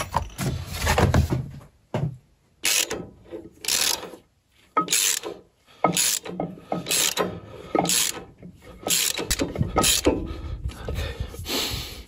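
Socket ratchet wrench clicking in short strokes, about one a second, as a big bolt is wound into a threaded hole in a Lumag HC10 woodchipper's housing to re-form a damaged thread.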